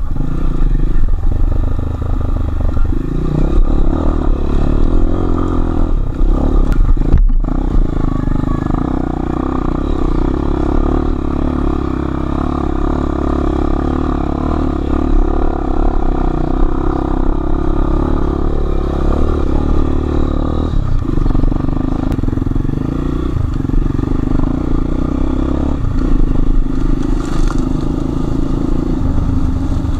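Enduro motorcycle engine running under load as it is ridden off-road, its pitch shifting with the throttle, with a very brief break in the sound about seven seconds in.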